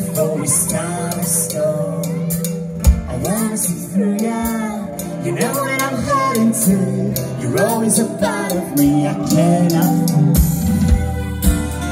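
A live band playing through a PA: singing over acoustic guitar and a drum kit, with the kick drum hits coming thicker near the end.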